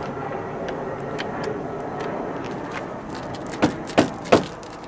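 Three quick knocks of a lead-shot-filled rubber mallet striking a wooden hull plank to drive it into place, about a third of a second apart near the end, over steady background noise.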